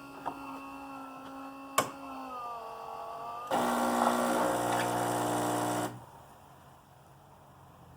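Saeco Xelsis super-automatic espresso machine brewing espresso: a steady mechanical hum with a sharp click about two seconds in, then a louder pump buzz for about two and a half seconds that cuts off suddenly, leaving a faint low hum.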